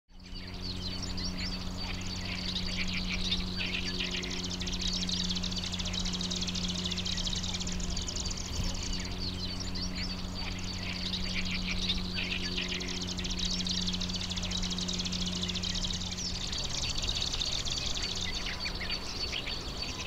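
Black-browed reed warbler singing a continuous, rapid, scratchy chattering song, with a steady low hum underneath.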